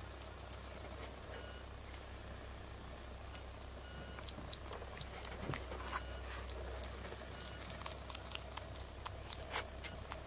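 Baby monkey grooming a cat's fur: a run of small, sharp clicks and ticks that come thicker from about four seconds in, over a steady low hum.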